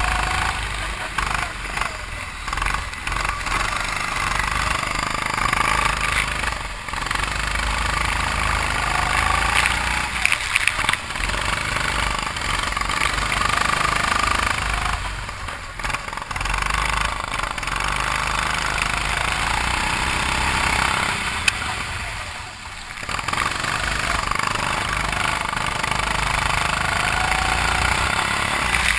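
A 270cc, 9 hp go-kart engine running hard, its sound dropping away briefly about four times between stretches of steady high running.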